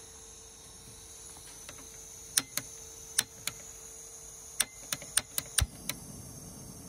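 Jetboil stove's push-button piezo igniter clicking about ten times in quick, uneven succession as the canister gas burner is lit. A little over halfway through the clicks the burner catches with a low pop, followed by the low rush of the flame.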